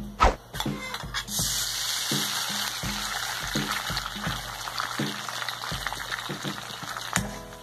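A sharp tap near the start, then an egg sizzling steadily in hot oil in a wok, beginning about a second in as it hits the pan.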